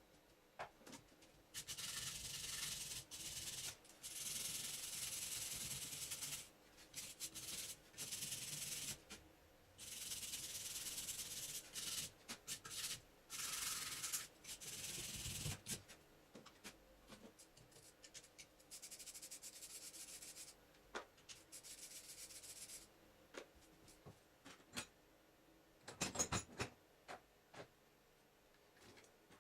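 Scraping and rubbing of metal parts while the alternator is taken apart, in repeated bursts of one to two seconds, then a few sharp clicks near the end.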